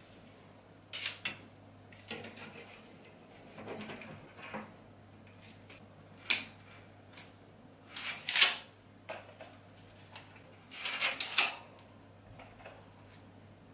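Handling noise from an access point's mounting plate being held and shifted against a plasterboard ceiling: scattered short scrapes and clicks, about half a dozen, the loudest about eight seconds in, over a faint steady low hum.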